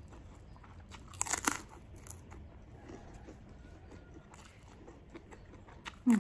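Close-miked eating: a loud crunchy bite about a second in, with quieter chewing after it and another short sharp mouth sound near the end.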